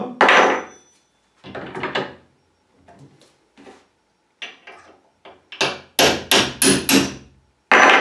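Hammer blows on a steel punch, metal on metal with a short ring, knocking the drilled-out rivet through a brass padlock held in a bench vise. A few spaced strikes, then a quicker run of about three a second near the end.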